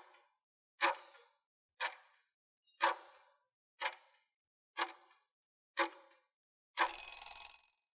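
Countdown timer sound effect ticking once a second, seven ticks in all. About seven seconds in, as the count runs out, it ends with a short, louder alarm-like burst.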